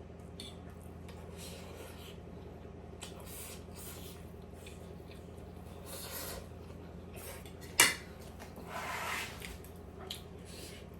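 Eating at a table: utensils clinking and scraping on plates, with soft eating noises. One sharp clink about eight seconds in is the loudest sound, over a steady low hum.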